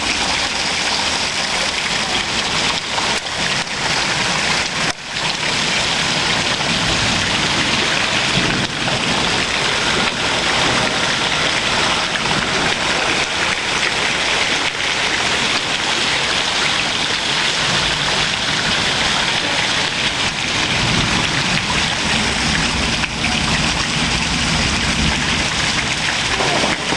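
Heavy rain falling steadily during a storm, an even hiss with a short lull about five seconds in.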